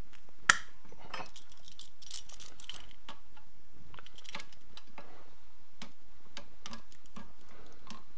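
Metal hand tools clinking and clicking against a Titan SGX20 airless spray gun as its trigger assembly is worked loose: one sharp clink about half a second in, then scattered lighter clicks and clinks.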